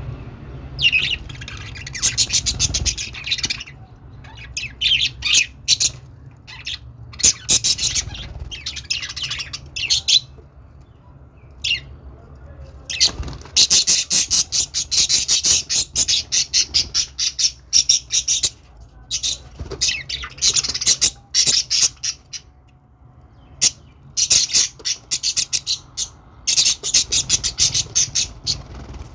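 Budgerigars chattering and warbling in bursts of fast, scratchy, high notes, each burst one to a few seconds long, with short pauses between.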